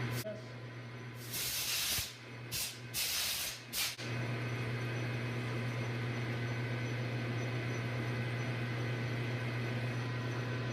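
Metal lathe running with a steady hum. Several short bursts of loud hiss come between one and four seconds in.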